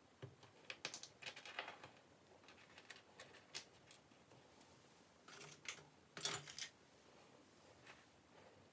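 Metal links of a two-tone steel and gold Rolex Oyster bracelet clicking and clinking as the bracelet is handled, in several short clusters of light, sharp clicks with quiet gaps between.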